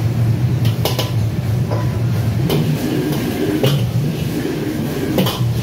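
Steady low roar of a commercial gas wok range and its extraction hood, with sharp metal clanks of utensils against pans every second or so.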